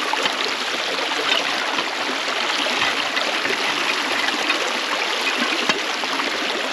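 Shallow mountain stream rushing steadily over rocks, with small scattered splashes.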